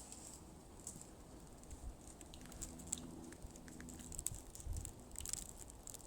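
Soft footsteps on a woodland path, with scattered light crunches and ticks, a few louder near the end. A faint steady low hum runs through the middle.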